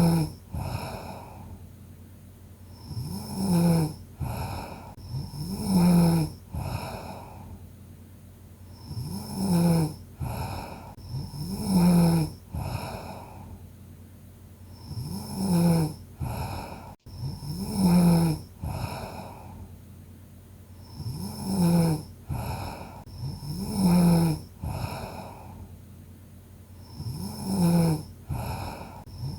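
A sleeping person snoring steadily, with a full breath cycle about every six seconds. Each cycle holds two loud, low, rasping snores about two seconds apart, with quieter breathing between them.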